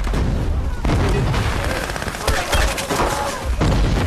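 Battle sound effects: rapid rifle and machine-gun fire, with heavy booms of explosions about a second in, a little after two seconds and near the end.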